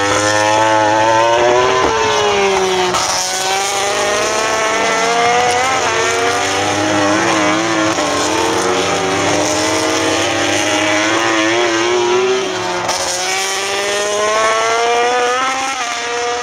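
Racing motorcycle engines at high revs, climbing in pitch through the gears with sudden drops at each upshift. Several bikes overlap as they pass.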